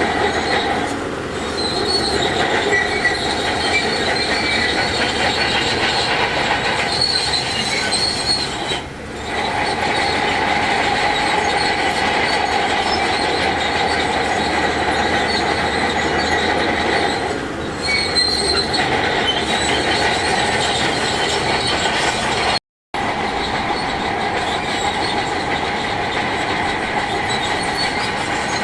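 Shantui DH17C2 crawler bulldozer's steel tracks squealing steadily over its running diesel engine, with a high metallic screech that comes and goes. The sound drops out completely for a moment about two-thirds of the way through.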